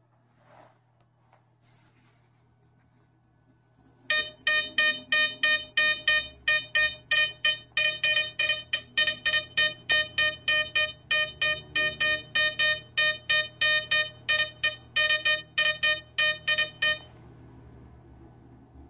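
Metal detector's audio signal beeping quickly and steadily, about three or four buzzy beeps a second, starting about four seconds in and stopping near the end: its target alarm for a coin held at the search coil.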